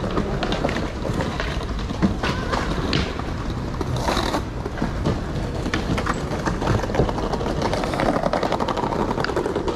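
Skateboards rolling over paving stones: a steady rumble with frequent clacks and knocks of boards on the ground, and a brief hissing scrape about four seconds in.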